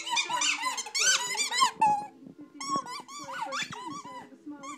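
Squeaky dog toy chewed by a Doberman puppy, giving rapid high squeaks, a quick run in the first two seconds, then fewer, more spaced-out squeaks.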